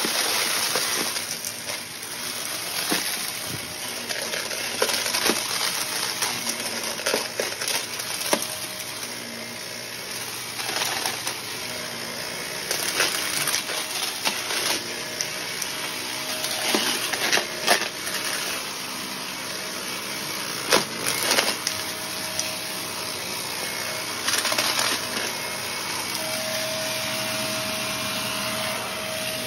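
Shark upright vacuum running on carpet, sucking up crunchy debris: a steady suction noise dotted with frequent sharp crackles and clicks as bits are pulled through and hit the canister. A faint steady whistle comes in over the second half, clearest near the end.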